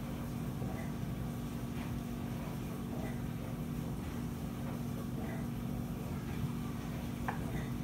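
Steady low hum, with faint soft taps of a chef's knife cutting through a block of tofu onto a wooden cutting board and a sharper knock near the end.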